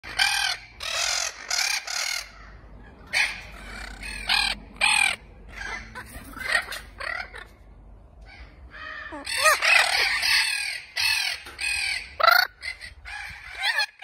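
A pair of Spix's macaws calling back and forth with repeated loud, harsh screeches that rise and fall in pitch. The calls come in short runs, then crowd together and overlap from about nine seconds in. This is the synchronized duetting a pair uses to mark its nesting territory.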